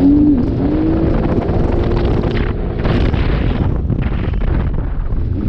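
Jet ski running at full throttle at high speed, with wind blasting the microphone and water rushing past; the engine holds a steady drone for the first few seconds, and the noise is loudest right at the start.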